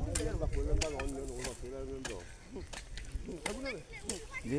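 Voices of people talking, their words not clear, with a few sharp clicks or snaps and a low rumble underneath.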